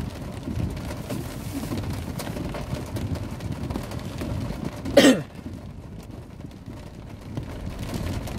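Heavy rain on a car, heard from inside the cabin as a steady wash of noise over a low rumble. About five seconds in, a person gives one short, loud cough that drops in pitch.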